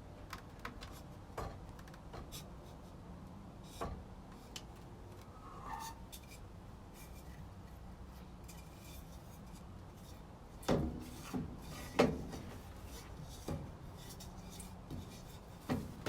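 Scattered light knocks, clicks and rubbing of wooden pieces and hand tools being handled, with a few louder knocks about eleven and twelve seconds in.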